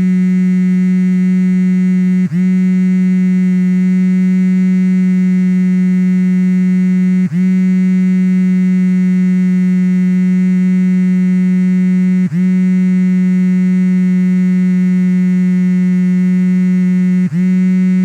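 iPhone 4 vibration motor buzzing steadily with a low hum. About every five seconds the buzz briefly dips in pitch and loudness, then comes straight back.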